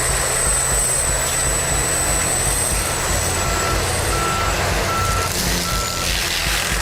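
Heavy machinery running steadily with a high whine over the engine, while a backup alarm beeps about five times, roughly every 0.7 s, in the second half.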